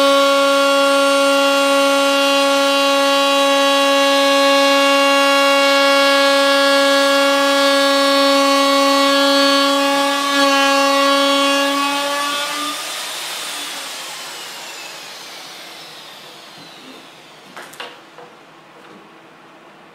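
Electric wood router with a bearing-guided bit running steadily with a high whine while trimming a rabbet along a plywood deck edge. About twelve seconds in it is switched off and the whine falls away as the motor spins down, followed by a couple of light clicks near the end.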